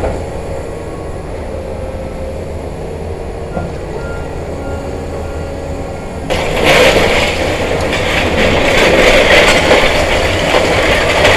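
A demolition excavator breaking up a brick building. A steady low machinery rumble runs first, then about six seconds in a much louder, rough crunching and clattering starts and keeps going.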